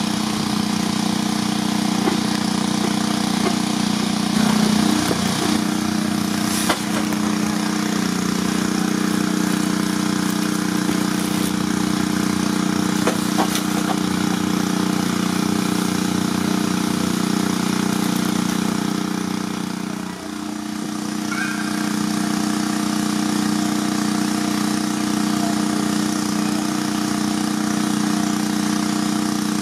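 6 hp Advance steam traction engine running under load, belted to a dynamometer: a steady, even mechanical drone with a single sharp knock about seven seconds in.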